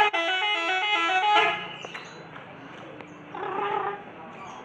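Bus telolet horn, a multi-note musical air horn, playing a quick stepping tune and cutting off about a second and a half in. A short voice follows near the end.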